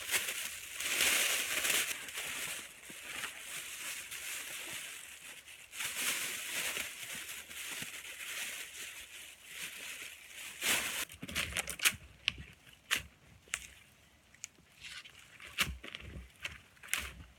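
Crunching and rustling in cold, dry snow. After about eleven seconds it gives way to a run of separate sharp snaps and crackles.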